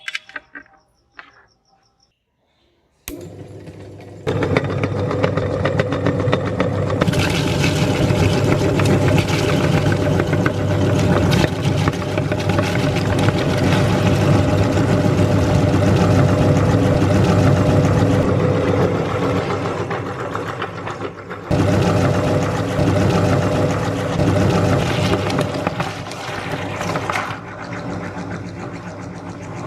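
A few clicks, then an electric meat grinder switched on about three seconds in, its motor running with a steady hum while grinding beetroot. The grinding gets louder and harsher a few seconds later, drops out briefly about two-thirds of the way through, and eases near the end.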